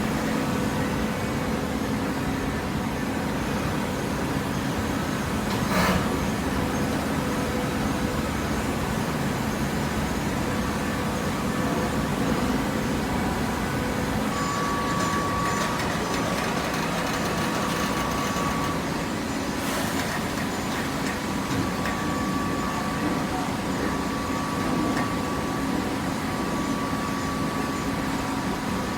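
PET bottle baling press running: a steady machine hum with a high whine that comes and goes through the middle, and two sharp knocks, one about six seconds in and one about twenty seconds in.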